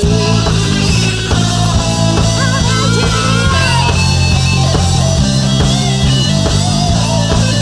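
Instrumental music with no singing: a guitar-like lead with sliding notes over drums and a steady bass line.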